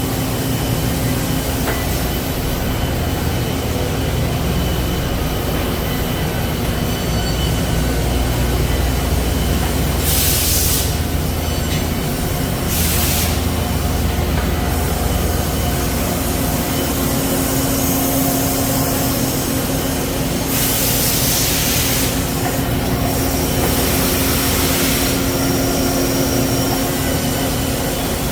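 Citizen K16E CNC Swiss-type lathe running a machining cycle: a steady machine hum, broken four or five times by short hissing bursts.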